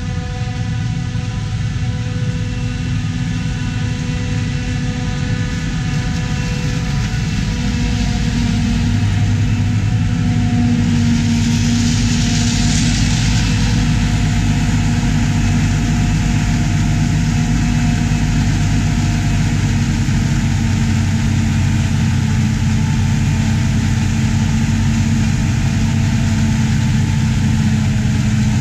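The diesel engines of a self-propelled forage harvester and a tractor run steadily while chopping corn silage. The sound grows louder about a third of the way in.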